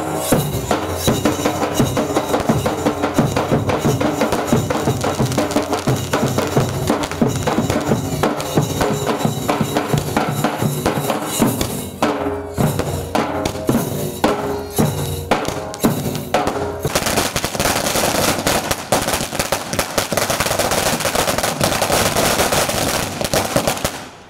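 Music with heavy drumming: fast, dense drum strokes over a melody, turning to a thicker, noisier texture about two-thirds of the way through.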